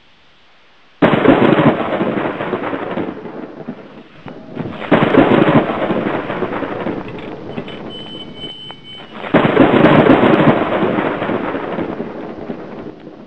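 Three thunderclaps, each starting suddenly and rumbling away over a few seconds.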